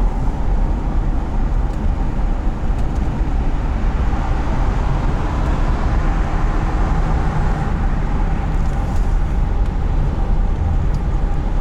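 Ford E350 van with a 5.4 L Triton V8 driving at road speed: a steady mix of engine and tyre/road noise from inside the cab.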